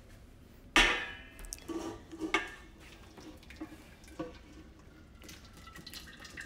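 A sharp metallic clank of cookware about a second in, then a few lighter knocks. After that comes a thin, steady trickle as hot cream drains from a saucepan of boiled potatoes through a metal colander into a bowl.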